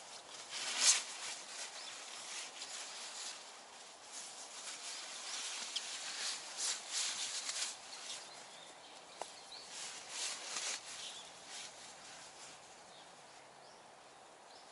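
Irregular rustling and handling noises, like fabric and gear being moved about, coming and going with quieter stretches between.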